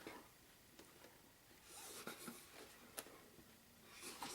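Faint rubbing and scraping of hands handling a cardboard game box, with one light tap about three seconds in.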